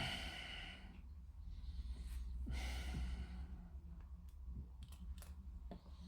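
A person breathing out twice with a heavy sigh, each about a second long, close to the microphone, followed by a few faint clicks; a steady low hum runs underneath.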